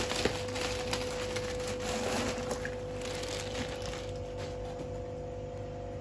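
Faint crinkling of a plastic fish bag as it is lowered into a bucket of water, with a small click just after the start, over a steady low hum.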